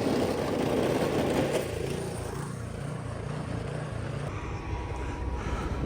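Gas snowblower engine running steadily after being restarted on the choke.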